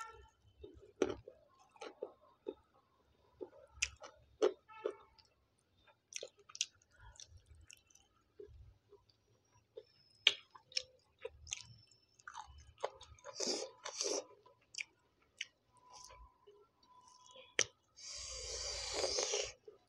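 Close-miked chewing of a handful of rice and curry: soft wet mouth smacks and small clicks, a little busier midway. Near the end comes about a second and a half of louder rustling, with fingers mixing rice on the plate.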